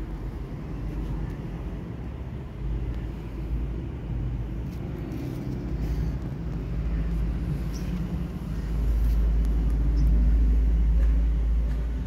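Low, steady outdoor rumble that swells louder about nine seconds in, then eases near the end.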